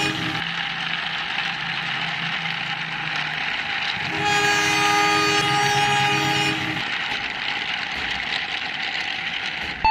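Diesel train passing: a steady rumble and hiss of the train running, with the end of a multi-tone locomotive air horn in the first half second and a second horn blast of about two and a half seconds starting about four seconds in.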